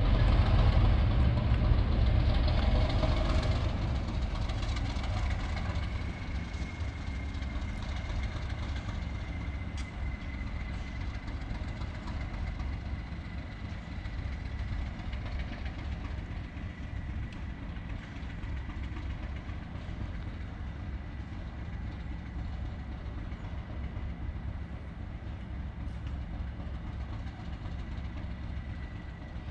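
Diesel locomotive engine running, loudest for the first few seconds and then settling to a steady idle, with a faint steady high whine coming in after about six seconds.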